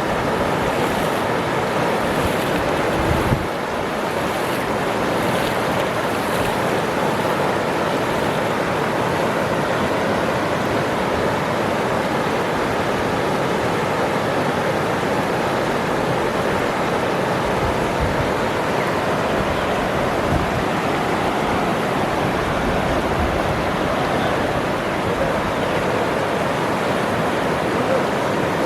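Waterfall: a steady rush of falling water. A brief low bump about three seconds in.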